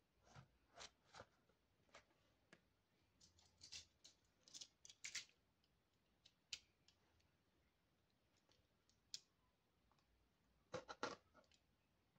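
Quiet handling of toy packaging: scattered short clicks and scrapes, with a small cluster about four to five seconds in and another near the end.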